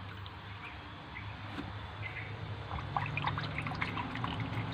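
Water in a plastic fish tub trickling and dripping as a hand dips in and moves it. Small drips and splashes grow busier in the second half, over a faint low hum.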